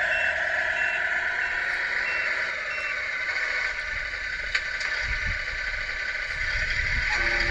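Tamiya MFU-01 sound unit in an RC Globe Liner truck playing a diesel-engine sound through its small speaker. A high reversing beep repeats about every 0.6 s for the first three seconds while the truck backs up. Near the end a different sound of several tones at once starts.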